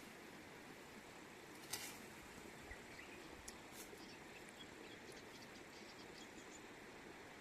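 Near silence: faint outdoor background hiss with a few brief, sharp high sounds, the loudest about two seconds in.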